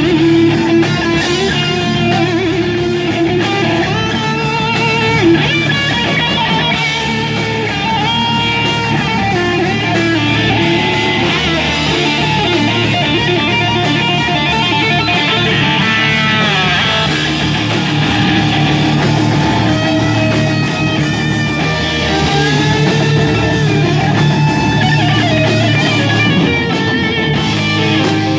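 Thrash metal band playing live: distorted electric guitars, bass guitar and drums.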